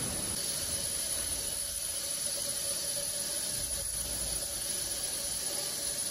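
Steady hissing air noise of intensive care equipment, with a faint steady tone running under it.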